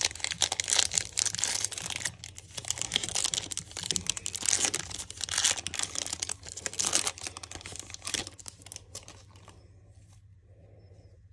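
An Upper Deck hockey card pack's shiny foil wrapper being torn open and crinkled in the hands, a dense crackle that dies down about eight or nine seconds in to faint handling of the cards.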